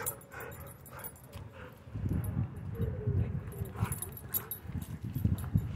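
A dog whimpering faintly, a few short whines, one falling in pitch about three seconds in. Irregular low thuds start about two seconds in and are louder than the whines.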